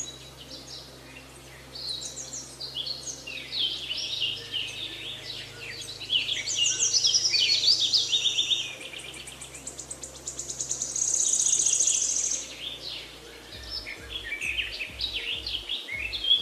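Birdsong, many overlapping chirps and trills, including a fast high trill around the middle, laid over a soft music bed of low held notes that change every few seconds. A pulsing beat comes in near the end.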